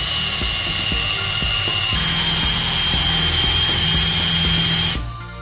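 Cordless drill boring a 25 mm spade bit into a painted timber door frame: a steady motor whine over the bit's cutting noise. About two seconds in the whine steps up in pitch and gets louder, and the drill stops about five seconds in.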